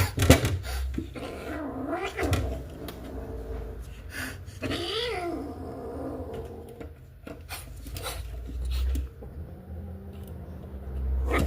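Domestic cat yowling in drawn-out calls that rise and fall in pitch, the clearest about two seconds in and about five seconds in, with a few sharp knocks.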